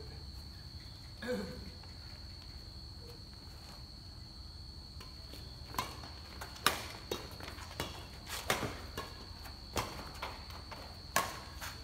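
Badminton rackets striking a shuttlecock in a rally: sharp, irregular smacks starting about halfway through, about a dozen in all, mixed with shoes on the concrete court. A steady high-pitched whine sits underneath.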